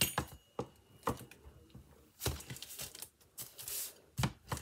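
Clicks and knocks of craft tools, a rolling pizza-style cutter and a plastic polymer clay roller, being picked up and set down on a cutting mat, with brief paper rustling as the roller starts rolling clay over a sheet of paper near the end.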